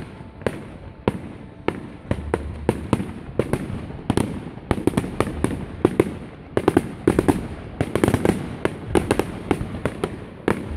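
Aerial firework shells bursting overhead in quick succession, a steady string of sharp bangs that comes thicker and faster about halfway through.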